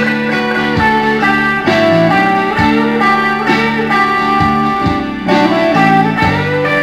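Telecaster electric guitar playing a slow ballad lead, held notes with some bent up in pitch, over a band backing with bass.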